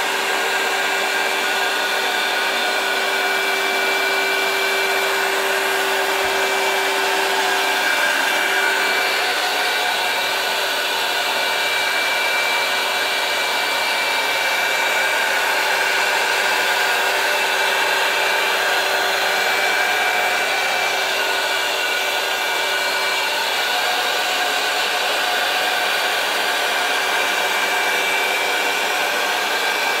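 Vacuum motor of a carpet and upholstery cleaning machine running steadily, a loud, even rushing noise with a faint steady tone in it that shifts in pitch about two-thirds of the way through.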